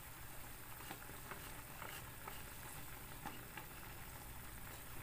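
Pork chops and onions simmering in a pan of soy-based sauce, a faint steady bubbling and sizzling. Scattered light ticks and scrapes come from a wooden spatula stirring in the pan.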